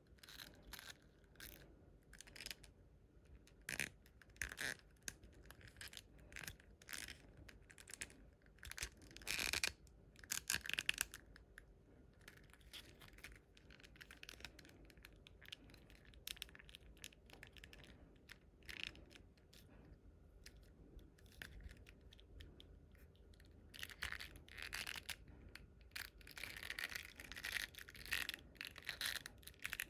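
Small plastic clicks, taps and scrapes from hands handling a plastic action figure and its packaging, with longer spells of rustling about ten seconds in and again near the end.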